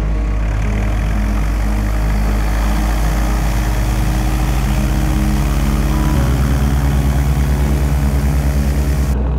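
Light single-engine aircraft on wheel-skis taxiing on snow, its piston engine and propeller running steadily at low power. About six seconds in the engine note changes and takes on a regular throbbing beat.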